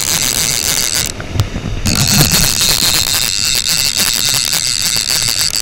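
Penn No. 77 Sea Hawk reel's bait clicker buzzing with rapid clicks as the handle is cranked to retrieve line, stopping for a moment about a second in. Surf and wind rumble underneath.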